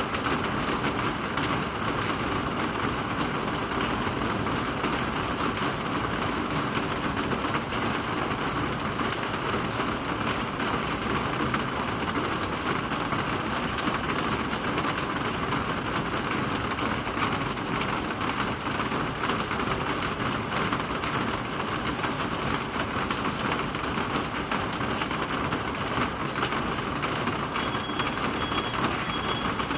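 Steady rain falling, a constant even hiss. Near the end a faint high beeping starts.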